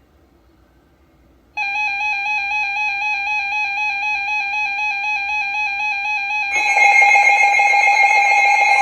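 NOAA weather radio alert tones announcing a flash flood warning. After a moment of near silence, a loud electronic alarm tone with a quick, fine warble starts about a second and a half in. About five seconds later a louder, steady alert tone takes over.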